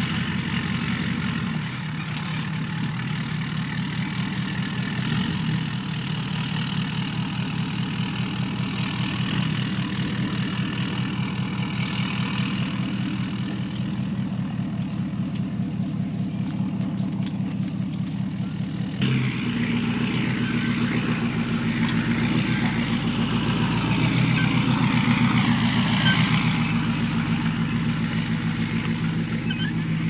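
Pickup truck engine running steadily at low speed with a low drone. About two-thirds through the sound changes abruptly, and a rushing noise rises over the engine.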